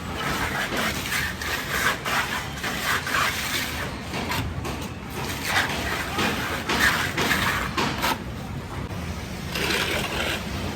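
A plastering trowel scraping and rubbing plaster across a wall in irregular strokes.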